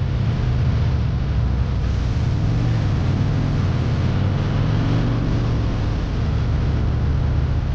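Yamaha Virago V-twin motorcycle engine running steadily at cruising speed, its low rumble under a constant rush of wind and road noise.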